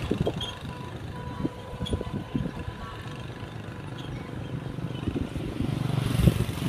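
Outdoor street noise of motor traffic: a low, steady rumble that swells as a vehicle passes, loudest near the end, with scattered light knocks.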